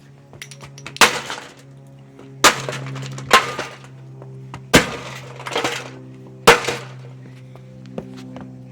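Holmes plastic box fan being smashed: five hard blows, each a sharp crack of brittle plastic breaking, with smaller clinks and rattles of fragments in between. Music plays underneath.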